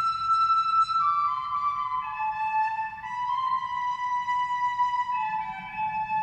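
Instrumental music: a slow, high melody of long held notes that step down in pitch.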